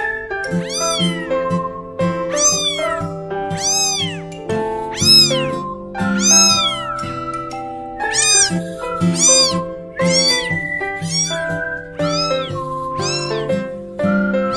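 Kitten meowing over and over, short high meows that rise and fall in pitch, about one a second, over background music.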